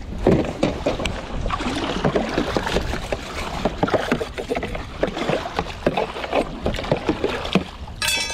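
Water poured into and sloshing about in a plastic bait tray being rinsed out, with irregular splashes over a steady low rumble. A brief high-pitched squeal comes right at the end.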